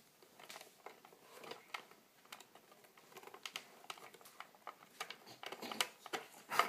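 Wooden puzzle pieces clicking and knocking in the hands as the puzzle is worked: irregular small taps, a louder knock near the end.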